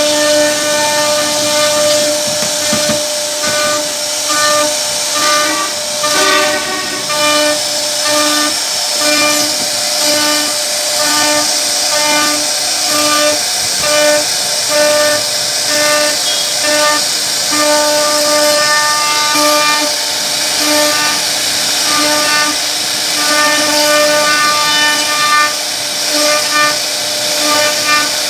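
CNC router spindle whining at one fixed pitch while its cutter carves grooves into a wooden panel; the whine swells and fades in quick repeated pulses as the bit works through the ridged pattern, over a steady hiss from the cut.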